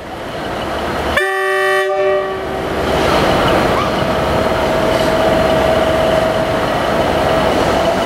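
A train horn gives one short blast about a second in, followed by the steady rumble of a Class 67 diesel-electric locomotive's engine opening up to start a train, with a held whine that rises slowly in pitch.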